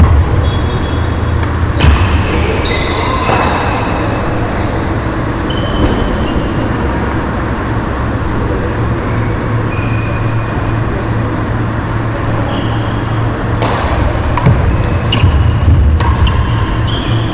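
Badminton rally: racket strings striking the shuttlecock as a few sharp cracks, and short high squeaks of shoes on the wooden court floor, over a steady low rumble.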